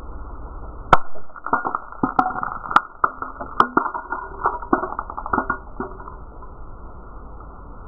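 A glass jar shattering on concrete paving slabs: one sharp crash, then a scatter of shards clattering and tinkling across the stone, dying away after a few seconds.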